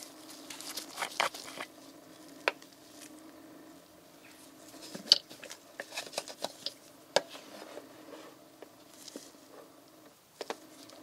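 Plastic sample bottle handled in nitrile-gloved hands: glove and plastic rustling in spells, with a few sharp clicks and taps, over a low steady hum.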